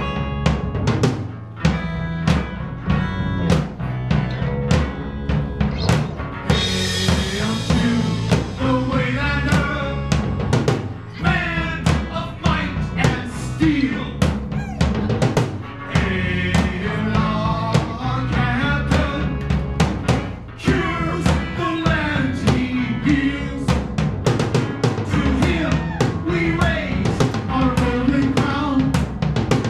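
Live rock band playing: a drum kit beats a steady rhythm of bass drum and snare under electric guitar, with a melody winding over it from about seven seconds in.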